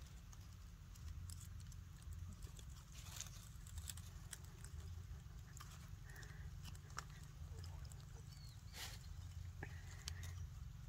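Faint wet clicks and smacks of a baby monkey mouthing and chewing at its own hand, over a steady low rumble. Two brief faint squeaks come about six seconds in and again near the end.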